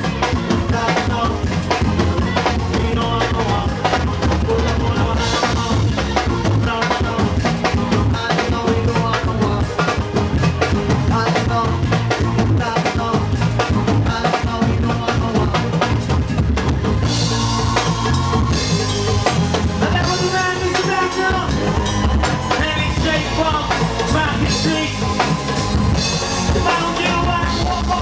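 Band music with a drum kit keeping a steady beat over a strong bass line.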